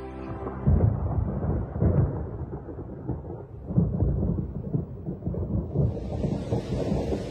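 Thunder rumbling in repeated deep rolls during a thunderstorm, with a steady rain hiss coming in near the end.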